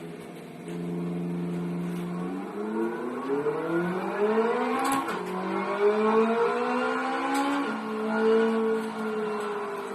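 Small electric drive motors of a hobby RC car whining. The pitch holds steady at first, climbs gradually for several seconds as the motors speed up, then drops sharply and holds.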